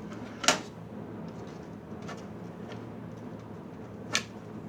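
Computer parts being handled on a workbench: two sharp clicks, one about half a second in and one near the end, with a few fainter taps between them, over a steady low hum.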